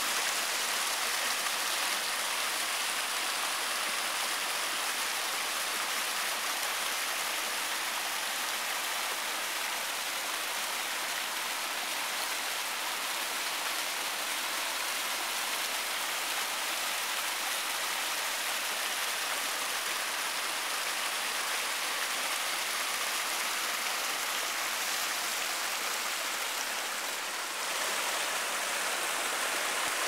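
Shallow mountain stream rushing and splashing over rocks: a steady hiss of running water that dips briefly near the end.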